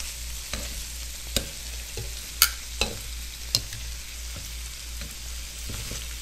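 Shrimp sizzling in a hot wok as they are turned over with tongs, the tongs clicking against the pan about seven times, loudest about two and a half seconds in. The shrimp, dried well beforehand, are roasting rather than stewing in their own water.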